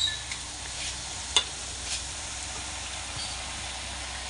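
Hot oil sizzling steadily as rosbora fritters deep-fry, with a single sharp click about a second and a half in.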